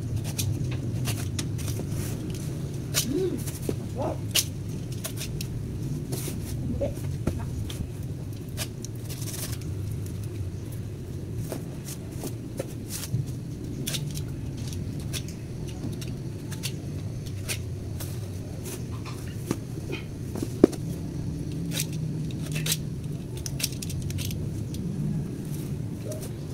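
A knife cutting hands of pisang ambon bananas off the stalk of a harvested bunch: scattered crisp cuts, clicks and snaps, with one sharp crack about twenty seconds in. A steady low rumble runs underneath.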